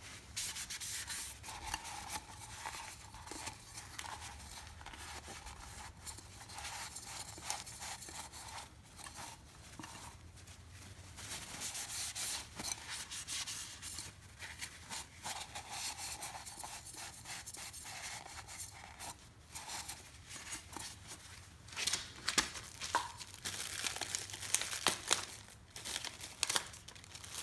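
Irregular rubbing and wiping as the plastic oil filter housing is cleaned by hand after its old gasket is removed, with scratchy strokes that grow louder near the end.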